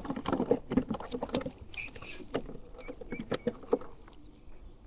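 Handling of fishing tackle in a kayak: an irregular run of clicks, knocks and rustles as the rod and reel are handled, starting with a sharp knock and tailing off near the end.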